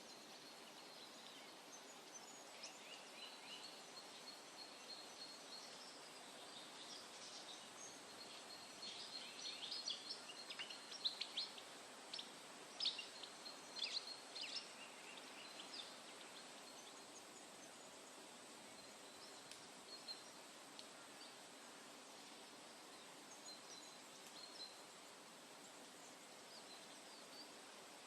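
Wild birds chirping and calling in woodland: many short, high chirps and whistled notes, busiest and loudest through the middle stretch and sparse before and after, over a faint steady background hiss.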